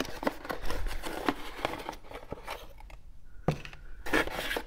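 Small cardboard parts box being opened and handled: the cardboard flaps rustle and scrape with quick clicks, busiest in the first two seconds, then a few sharper taps near the end as the part is taken out.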